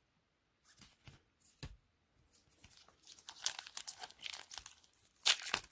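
A few light clicks of cards being handled, then crinkling and tearing of a trading-card pack wrapper from about three seconds in, with one sharp rip near the end.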